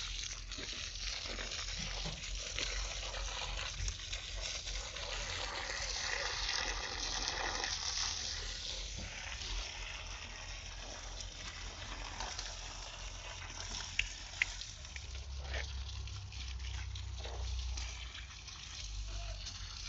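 Water being poured and splashing at the base of a tree, a steady gushing wash that is strongest in the first half. Two sharp clicks come about two-thirds of the way through.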